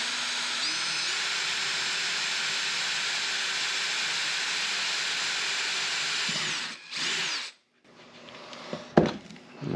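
Cordless drill running steadily as it bores a 4.9 mm hole through a plastic cover, its whine rising as it speeds up in the first second. It stops about six and a half seconds in, spins up briefly once more, and a single sharp click follows near the end.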